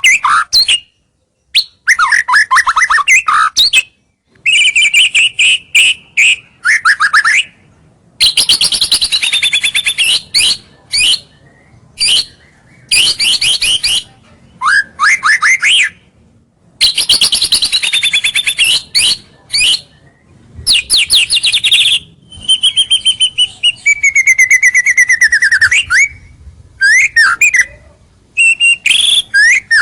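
White-rumped shama singing: loud, varied phrases of rapid trills and clear whistles, some sliding downward in pitch, separated by short pauses.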